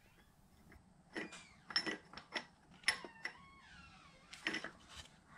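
Steel T-bolts clicking and scraping against the Bridgeport mill's ram adapter and a wooden holding template as they are handled into position: a dozen or so light, separate clicks, a few with a brief metallic ring.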